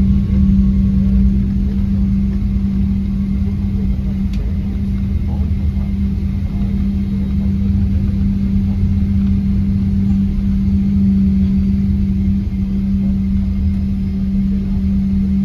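Cabin noise of an airliner taxiing after landing: the jet engines running at low power and the rolling rumble of the plane, a steady low hum over a deeper rumble.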